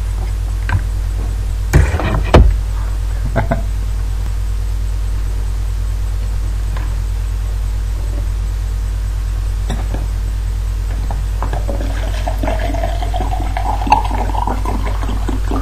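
Liquid poured from a bottle into a cup, starting about twelve seconds in, its pitch rising steadily as the cup fills. Earlier come a few knocks of handling, the loudest about two seconds in, over a steady low hum.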